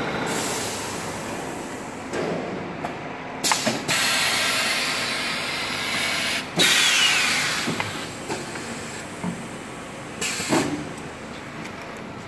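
Automatic multi-roll toilet paper packaging machine running, with several loud hisses of released air from its pneumatic parts a few seconds apart, the loudest about halfway through, and sharp mechanical clacks between them.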